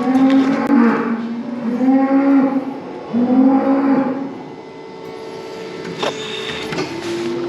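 Cows mooing: three calls of about a second each in quick succession, then a longer, quieter call, with a couple of sharp knocks near the end.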